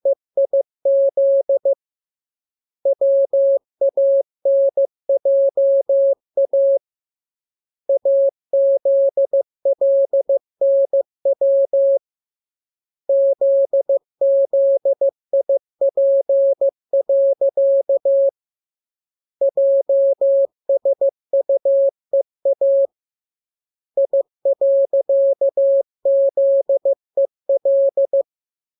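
Morse code practice tone: a single beep keyed on and off in dots and dashes, sent in groups of characters with pauses of about a second between groups.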